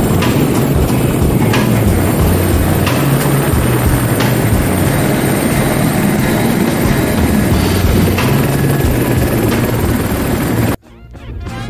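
AS350 helicopter's turbine engine and rotor running steadily, heard close up at the open cabin door. Near the end it cuts off suddenly as music comes in.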